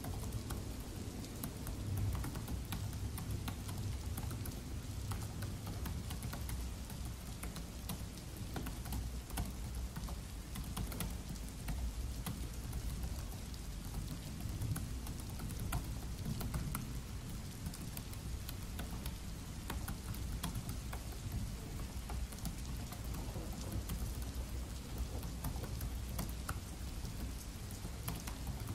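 Steady rain with a low rumble, and under it a fast, continuous patter of key clicks from typing on a Dell laptop keyboard.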